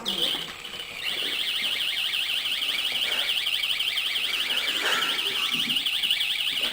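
Electronic door alarm sounding: a short high beep, then from about a second in a loud, fast-warbling high-pitched siren tone that holds steady and cuts off suddenly near the end.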